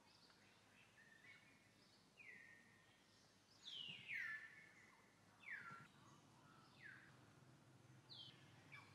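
Birds calling faintly: about six short notes that each fall sharply in pitch, the loudest around the middle.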